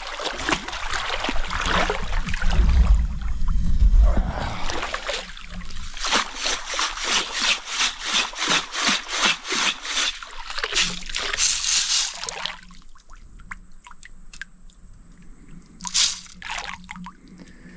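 Long-handled mesh scoop sifter worked through creek gravel and shaken in the water, washing the gravel: splashing at first, then a steady run of about four sloshing strokes a second for several seconds. Near the end a single sharp clatter as the gravel is tipped onto a screen sifter.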